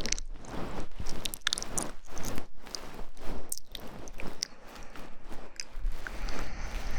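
Close-miked ASMR trigger sounds: an irregular run of sharp clicks and scratchy rustling, with soft noisy stretches between them.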